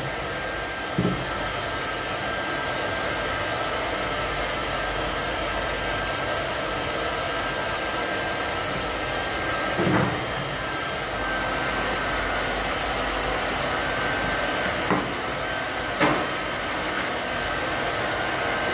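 Steady whir of a pet grooming dryer running, with a thin steady whine in it. A few soft knocks come through, about a second in, near the middle, and twice near the end.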